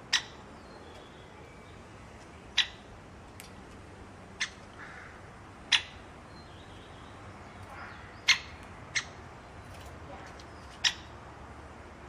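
Great spotted woodpecker giving sharp, short single 'kik' calls, seven in all, at uneven gaps of one to two and a half seconds.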